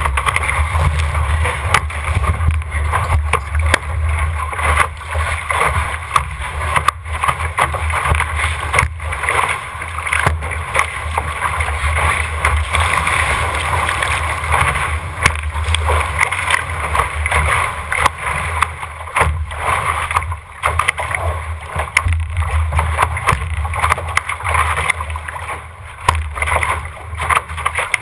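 Rushing hiss of water and spray streaming past the hull of an RS600 sailing dinghy sailing fast through choppy waves, with a steady low rumble of wind on the deck-mounted microphone and frequent sharp slaps of spray and chop against the hull.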